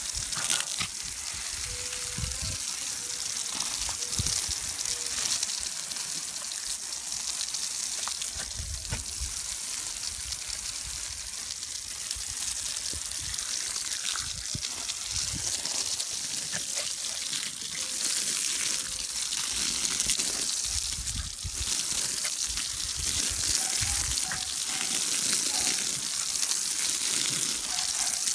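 Garden hose jet spraying and splashing onto grass and soil, a steady hiss, with dull low thumps now and then.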